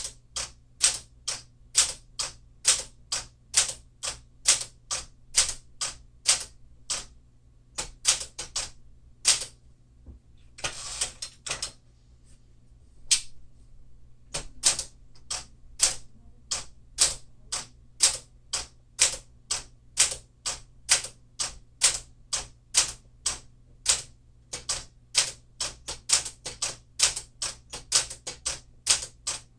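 1952 Smith-Corona Clipper manual typewriter being typed on: a steady run of sharp keystroke clacks, about two to three a second, with a brief pause and a longer rasping sound about eleven seconds in.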